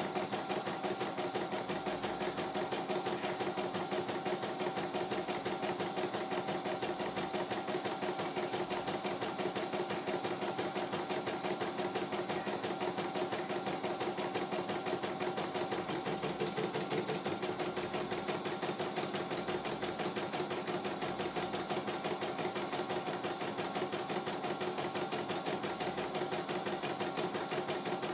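CNY E900 computerized embroidery machine stitching a design: a steady, rapid run of needle strokes over the hum of its motor, with no pauses.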